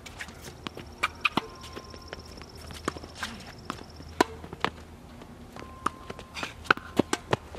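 Tennis rally on an outdoor hard court: sharp pops of racket strings hitting the ball and the ball bouncing, with a quick cluster of hits and bounces near the end. Footsteps and shoes scuffing on the court come between the strikes.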